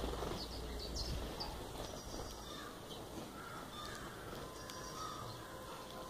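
A flock of house sparrows feeding, with short high chirps early on and sparser calls later, over a steady background hiss. A harsher cawing-type bird call is also present.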